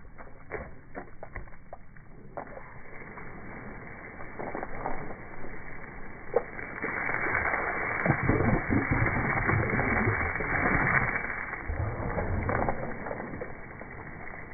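Water spraying from a garden hose and splashing on a mastiff's open mouth and face and on the concrete as the dog bites at the stream. There are a few sharp clicks in the first couple of seconds, and the splashing gets louder about seven seconds in.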